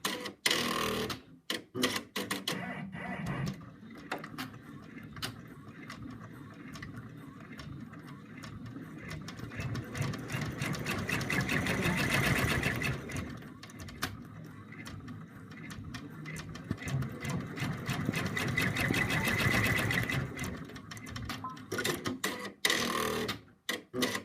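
Home embroidery machine stitching out a run of small red circles on felt in the hoop: a fast, steady needle rhythm that swells louder in the middle and drops briefly quiet near the start and again near the end.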